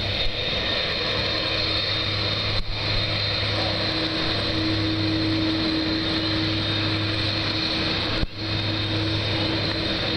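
Airbus A300-600R's twin turbofan engines at low taxi power: a steady whine and rumble that holds level throughout, cutting out very briefly twice.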